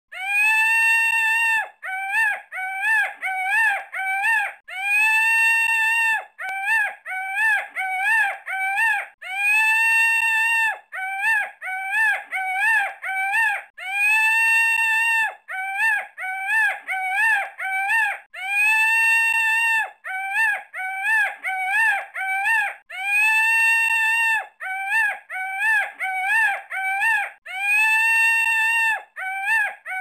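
Peacock calling: a long call of about a second and a half followed by a quick run of short calls. The same pattern repeats about every four and a half seconds.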